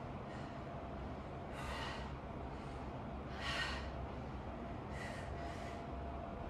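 A person breathing out hard through the nose and mouth from exertion during a workout: several short, hissy exhales a second or so apart, the loudest about halfway, over a low steady hum.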